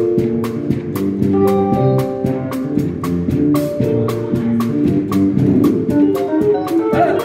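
Casio electronic keyboard played live in Damara punch style: a bouncy melody and chords over a steady drum beat with about four hits a second.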